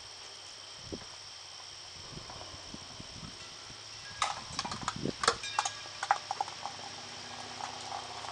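Steel bandsaw mill blades being handled, with a quick cluster of sharp metallic clinks and clatters, some briefly ringing, starting about four seconds in. A few soft knocks come before it.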